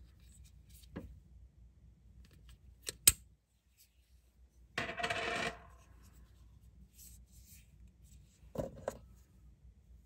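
Small plastic clicks from handling a PopSockets PopPuck fidget toy and its keyring carrying case: one sharp loud click about three seconds in, a short rattle about halfway through, and a few more clicks near the end as the case is opened and the puck taken out.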